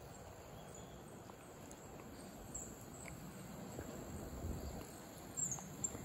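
Faint outdoor background noise with a few faint, very high-pitched chirps, a couple around the middle and another cluster near the end.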